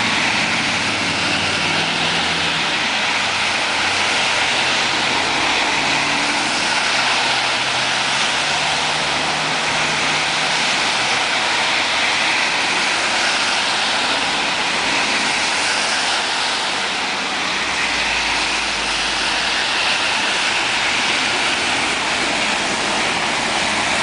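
Hail falling hard and steady, a dense unbroken patter of hailstones.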